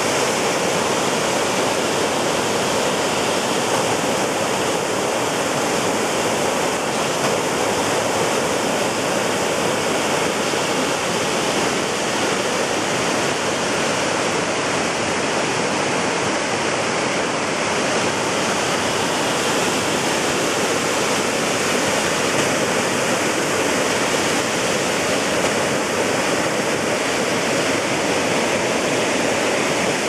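Waterfall in high flow after a week of heavy rain, its water rushing and splashing steadily over boulders into a rocky pool.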